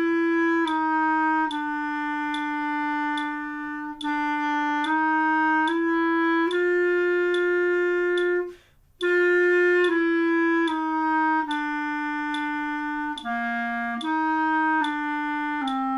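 Clarinet playing a slow, simple exercise melody at 72 beats a minute, one held note after another, with a short gap for a breath about halfway through.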